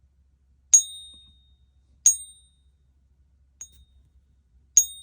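American Silver Eagle silver coins tapped, ringing four times with a clear, high, sustained ping that fades over about half a second; the third ring is faint. The long, bright ring is the characteristic sound of solid silver.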